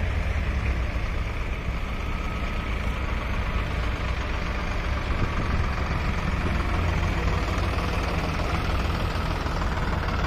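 Farmtrac 60 EPI tractor's diesel engine running steadily as the tractor drives over a dirt mound.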